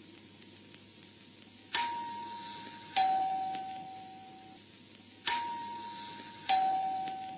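A two-tone ding-dong chime, a higher note followed about a second later by a lower one, sounded twice. Each note rings on and fades.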